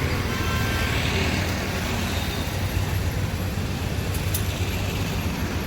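Steady wash of heavy rain mixed with street traffic, a constant low engine rumble underneath.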